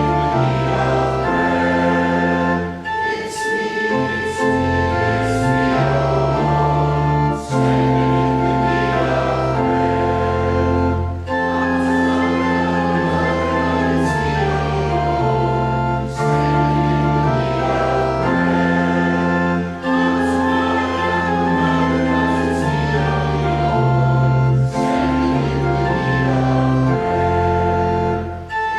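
Congregation singing a hymn with organ accompaniment, sustained chords over a steady organ bass.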